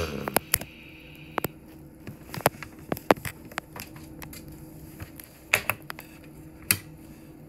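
Handling noise: irregular clicks and taps, a few sharper knocks among them, over a faint steady hum.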